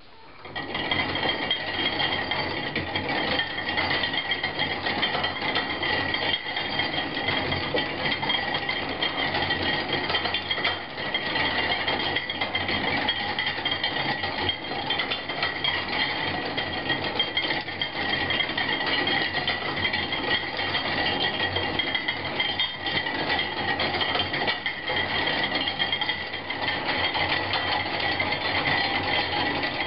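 Hand-cranked scrap-metal kinetic sculpture running, a drawing machine built from steel gears, linkages and brake-rotor turntables. Its metal parts clatter and rattle continuously, with a steady high-pitched ring over the clatter, starting about half a second in.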